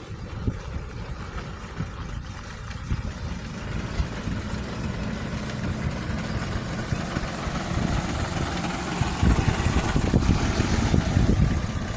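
Heavy diesel engine of earthmoving machinery running. It grows steadily louder and is loudest in the last few seconds.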